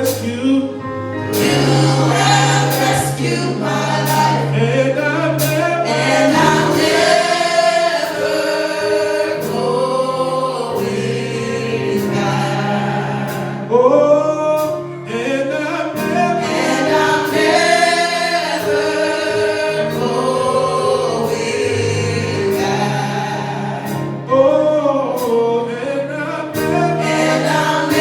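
Gospel music: a choir singing over held bass notes that change every few seconds, with regular light percussion strikes.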